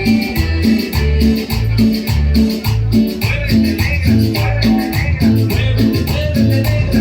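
Live tropical dance band playing, with bass notes, keyboard and shaken percussion such as maracas over a steady beat.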